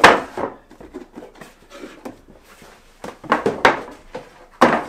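Clear plastic IKEA Samla storage bins being set down and slid onto the wooden shelves of a shelving unit: a sharp knock at the start, a cluster of knocks a little past three seconds in, and another loud knock near the end, with quieter plastic scraping between.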